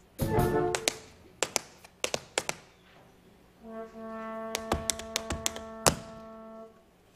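Pit orchestra brass playing a short chord just after the start and then a long held chord from about halfway, over sharp scattered taps, most likely tap shoes on the stage floor.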